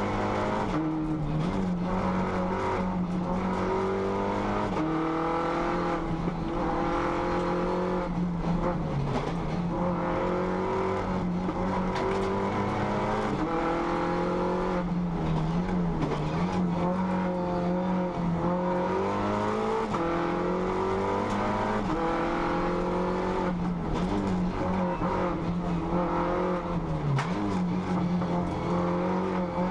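Race car engine heard from inside the cockpit, driven hard uphill: its note climbs in pitch for a few seconds at a time, then drops sharply, again and again, about every three to five seconds, over a steady bed of road and wind noise.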